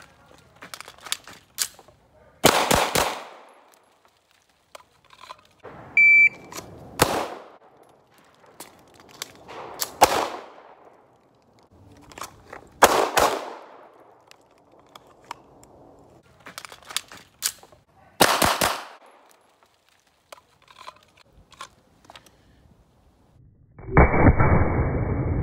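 Pistol shots at an outdoor range: about five loud single shots or quick pairs, a few seconds apart, with fainter clicks and knocks in between. Near the end, a long, muffled low boom.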